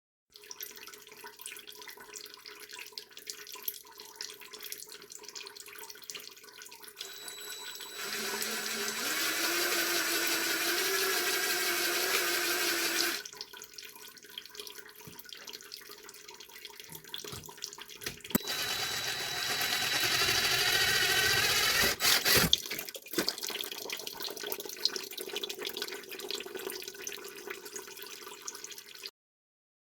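DeWalt 20V impact driver spinning a copper pipe cutter attachment through copper pipe, twice: two runs of several seconds, each with a whine that climbs in pitch, and a few sharp clicks near the end of the second. The footage is played at double speed, which raises the pitch.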